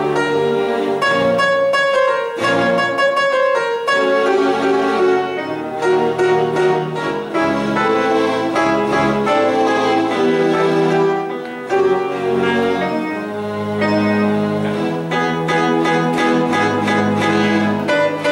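Grand piano played four hands: a line of quickly struck notes over a lower part in the bass.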